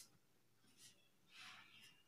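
Near silence, with two faint strokes of a pen drawing on pattern paper, about a second in and again about a second and a half in.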